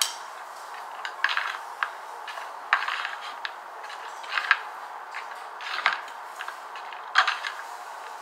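In-shell DAVID Original Jumbo sunflower seeds being cracked open between the teeth close to the microphone. There is a sharp crack about every second or two, some seven in all, several followed by a brief crunch.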